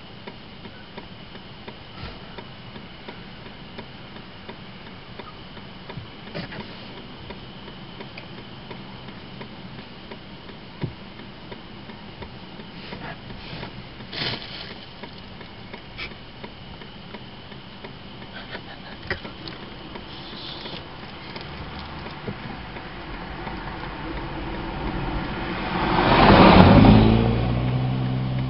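A car approaches and passes close by near the end, its noise swelling to a loud peak and then falling away, with a low engine note left behind. Before that, only a steady quiet background with a few small clicks.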